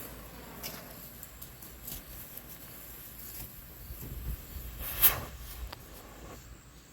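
Quiet outdoor background with a low rumble and a few sharp clicks, the loudest about five seconds in.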